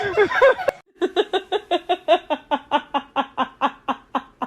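A person laughing in a long run of quick, even "ha-ha" pulses, about six a second, slowly fading. It starts about a second in, after a click and a brief gap.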